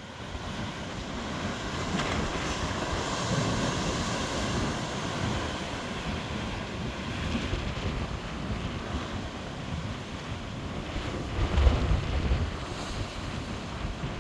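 Storm waves surging and breaking against a harbour sea wall, a steady rushing roar with a deep rumble, and wind buffeting the microphone. It swells loudest about twelve seconds in.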